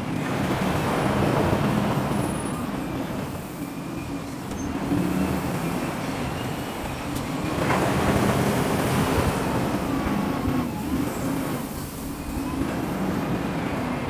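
Diesel engines of wheel loaders running and revving as they work, swelling and easing. A rush of gravel being tipped into a dump truck's bed starts just before eight seconds in.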